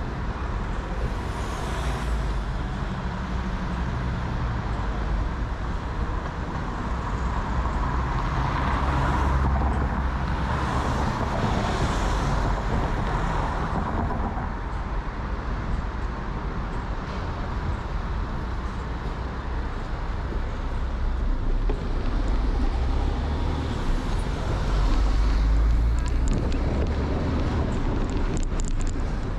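Road traffic with cars going by, heard from a moving bicycle over a steady low rumble; the traffic swells louder about a third of the way in and again near the end.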